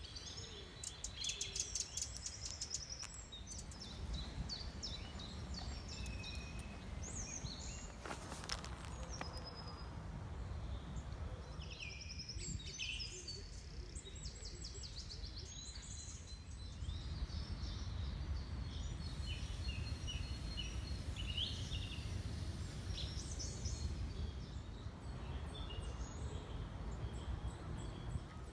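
Several small birds singing and calling with short chirps and trills, over a steady low rumble of outdoor background noise.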